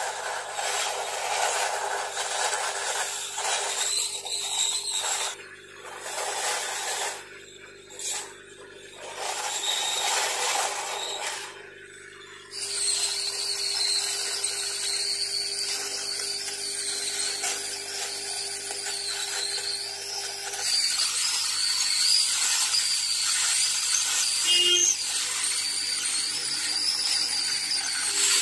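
A small handheld hot-air gun running, its fan motor giving a steady high whine over a low hum. The sound drops away briefly a few times in the first dozen seconds.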